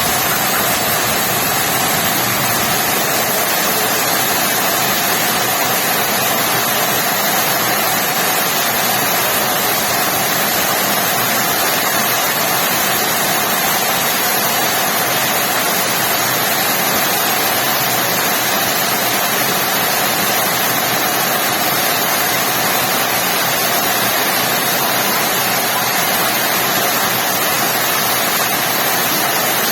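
Heavy rain falling, a steady, unbroken hiss.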